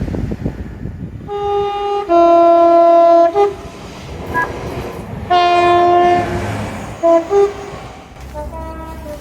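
A British train's two-tone horn sounds a high note that drops straight into a long, very loud low note, then gives a short toot. A couple of seconds later it sounds another long low note and two short toots, with a fainter blast near the end, over the rumble of the passing train.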